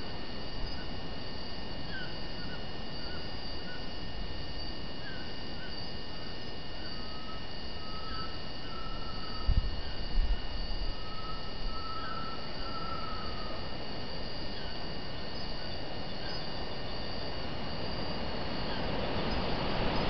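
Tropical rainforest dusk chorus: insects trilling steadily at a high pitch, with scattered short whistled bird notes and a few longer level whistles in the middle. A couple of low thumps come about halfway.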